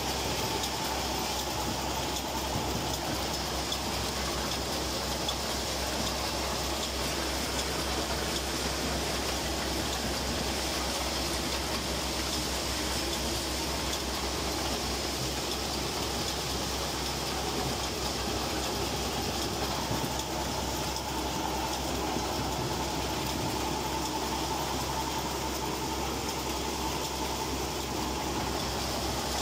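Tractor and dry bean harvester running steadily while harvesting bean plants: engine and the harvester's cutting and gathering mechanism at work.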